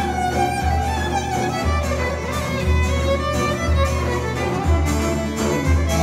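Violin and oud playing a lively folk tune together, the violin carrying the melody over the plucked oud, with a steady low beat about once a second.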